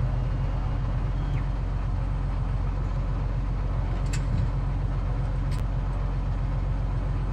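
Cessna 182Q's six-cylinder Continental engine and propeller droning steadily in cruise flight.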